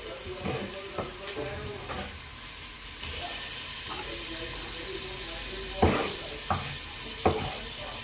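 A cleaver chopping tomatoes on a wooden chopping block: light taps early on, then three sharp knocks of the blade hitting the wood in the second half. A steady hiss runs underneath from about three seconds in.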